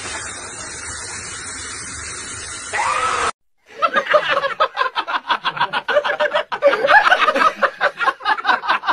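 A steady hiss for about three seconds, ending in a short rising and falling sound. Then, after a brief gap, a person laughs hard in rapid giggles, the loudest part.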